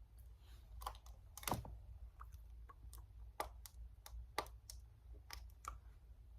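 About a dozen small, irregular clicks and taps of makeup containers and tools being handled, faint, the loudest about a second and a half in, over a low steady hum.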